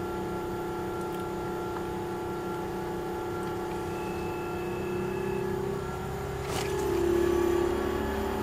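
Bosch IDS 2.1 inverter heat pump running: a steady hum made of several tones. About two-thirds of the way in it grows a little louder and one low tone rises slightly, as the variable-speed compressor and fan hunt for their optimal speed.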